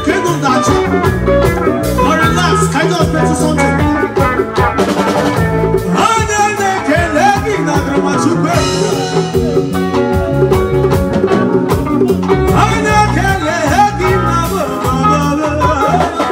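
Live band music: a drum kit keeping a steady beat under a bass guitar line, with electric guitar and keyboard, and a man singing into a microphone.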